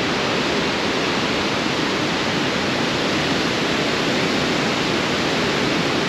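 Waterfall rushing steadily: the Ala de Ángel cascade heard close by.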